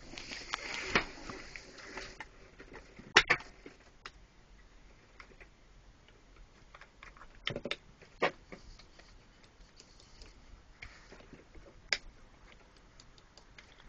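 Scattered sharp clicks and knocks, about five spread out with quiet in between.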